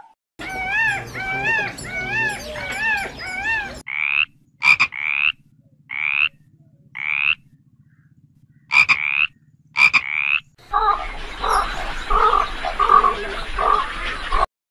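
A frog calling: short high calls repeated with silent gaps between them. It is preceded by a run of wavering, rising-and-falling animal calls, and near the end gives way to a rougher sound pulsing about twice a second.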